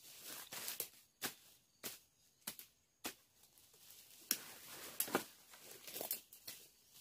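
Machete chopping through brush and undergrowth: a series of sharp cuts, roughly one every half second to second, with rustling of leaves and twigs in between.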